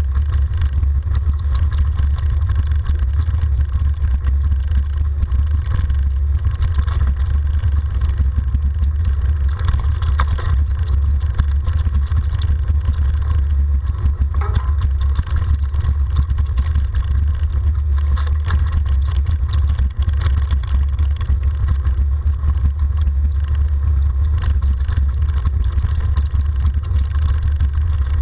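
Mountain bike rolling downhill on a dirt and gravel track, heard as a steady low rumble of wind and tyre vibration on a handlebar-mounted camera, with a few brief rattles.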